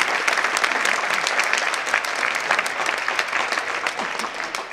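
Audience applauding after a table tennis rally, the clapping thinning out near the end.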